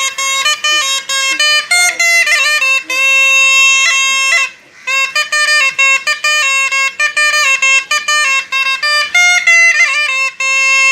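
A mimicry artist imitating a reedy wind instrument with his voice, holding a loud single melody line that steps between notes, with a short break about four and a half seconds in.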